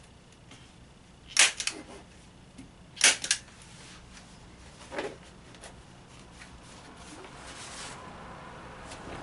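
Hand staple gun firing staples through raw canvas into a wooden stretcher bar: two loud sharp snaps, each with a quick second click, about a second and a half apart, then a fainter one about two seconds later.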